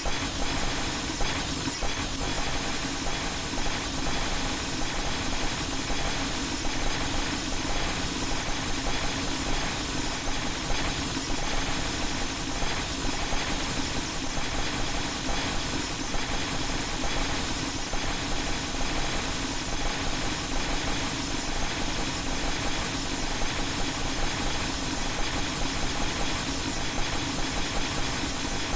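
A glass-shattering sound effect layered on itself many times over, blurred into a loud, steady wall of hiss-like noise with constant rapid flickers.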